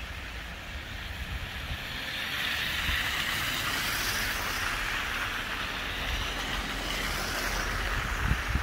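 Cars passing on a snow-covered street, their tyres hissing through the slush. The tyre noise swells through the middle and eases off near the end, over a low steady rumble.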